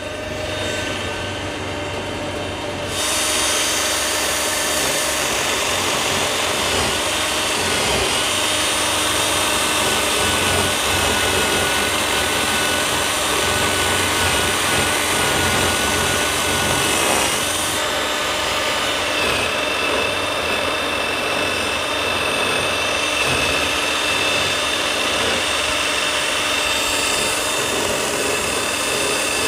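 Cordless drill spinning a rubber-finger quail plucker attachment at speed, starting up about three seconds in and then running steadily. The spinning rubber fingers beat the feathers off a scalded quail held against them.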